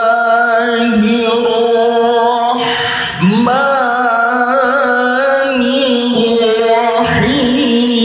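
A man reciting the Qur'an in the melodic tilawah style into a handheld microphone, holding long, ornamented notes. There is a short pause about three seconds in and another near the end, each followed by a new phrase.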